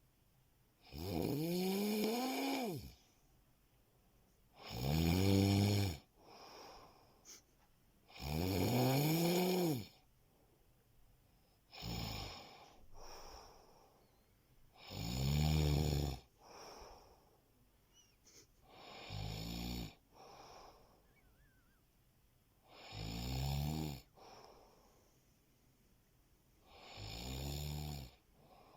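A person snoring in sleep: loud, rattling snores about every three and a half to four seconds, eight in all, some rising then falling in pitch, most followed by a softer, shorter sound.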